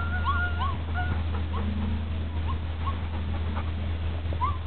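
Dog whimpering in a series of short, high rising-and-falling whines, over a steady low hum.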